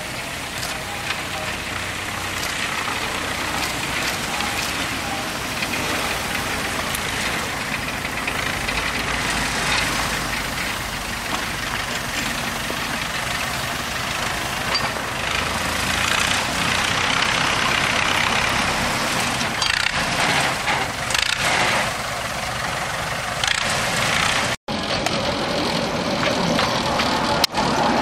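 Small narrow-gauge diesel locomotive engine running steadily as the train moves along the track, a little louder past the halfway mark, with a brief dropout about three quarters of the way in.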